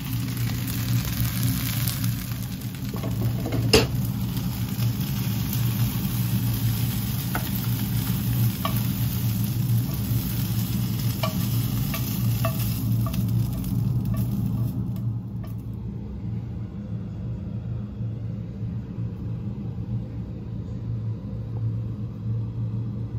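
Stir-fried rice vermicelli sizzling in a hot wok as it is stirred and scooped out, with a sharp clink about four seconds in and several lighter clinks of the utensil against the wok. The sizzling falls away about fifteen seconds in, leaving a steady low hum.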